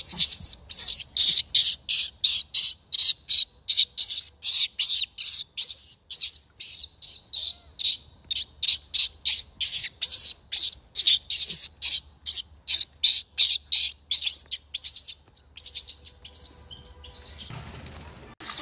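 A rapid run of shrill, evenly spaced chirps, about three or four a second, that weaken and thin out over the last few seconds.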